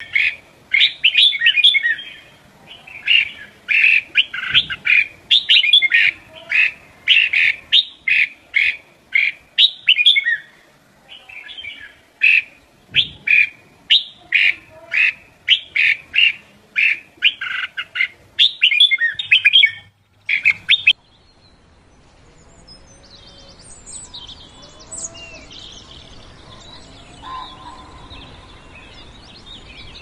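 A songbird singing loudly in a rapid string of short, sharp chirps, several a second, which stops suddenly about two-thirds of the way through. After it come fainter, scattered chirps and calls of other birds over a soft background.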